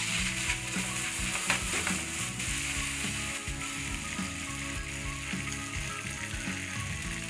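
Oil sizzling on a hot nonstick pan as a freshly patted thalipeeth, a flatbread of soaked poha and rice flour, is laid in and starts to fry: a steady, even sizzle.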